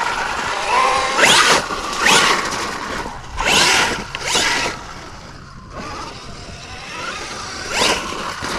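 Brushless electric motor of a Losi Super Rock Rey RC truck whining in about five short throttle bursts, each a quick rising whine, with a quieter lull a little past the middle.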